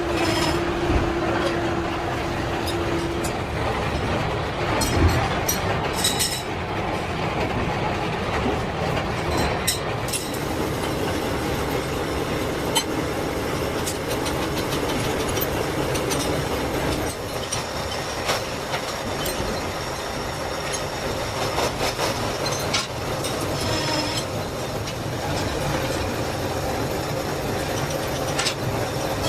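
Milling machine cutting gear teeth in metal: a steady grinding machining noise, with a held whine for the first few seconds and scattered sharp clicks from the cut.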